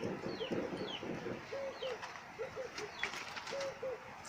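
Doves cooing in a repeated phrase of short low notes in pairs, with another small bird giving a few short falling chirps. A low rustling noise runs under the first second or so.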